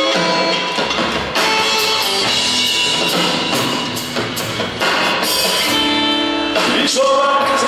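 A live rock trio plays a slow song: electric guitar, upright bass and drum kit, with cymbal strokes keeping time.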